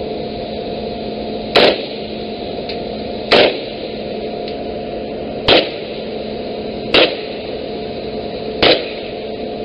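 Five single rifle shots fired from the ship's rail, one every one and a half to two seconds. Under them runs a steady drone of ship's machinery with a few held tones.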